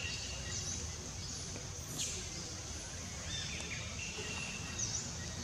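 Outdoor ambience: a steady high hiss with short bird chirps and whistled notes repeating every couple of seconds, over a low background rumble, and a faint tap about two seconds in.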